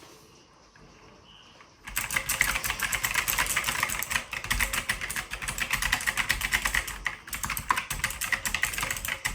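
Fast typing on a Logitech G512 Carbon mechanical keyboard with GX Blue clicky switches: a dense, rapid run of sharp clicks starts about two seconds in, with a brief break near seven seconds.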